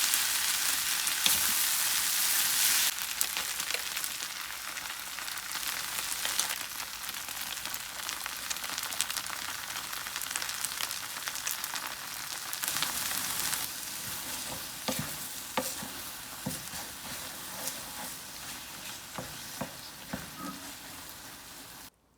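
Food sizzling in a hot frying pan while being stirred, with frequent clicks and scrapes of the utensil against the pan. The sizzle is loudest for the first three seconds, then drops to a quieter hiss, and cuts off suddenly near the end.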